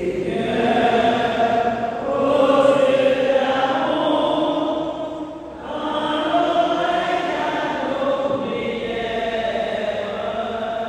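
Church congregation singing a slow chanted refrain, the sung response to an intention of the prayer of the faithful, in two long phrases with a short break about halfway through.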